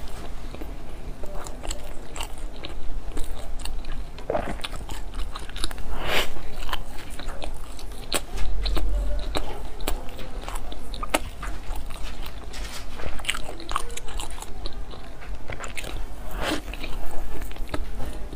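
Close-miked chewing of soft pork floss bread, with irregular short mouth clicks and smacks.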